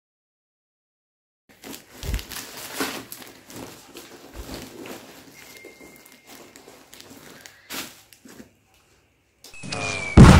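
Faint, irregular crinkling and rustling of bubble wrap and plastic packing being handled by hand, with small clicks. A loud burst of noise cuts in just at the end.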